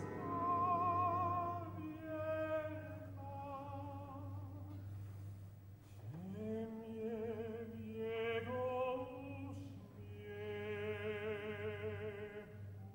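Operatic singing with wide vibrato, a man's voice sliding up into a long held note about six seconds in, over a low steady hum; it fades near the end.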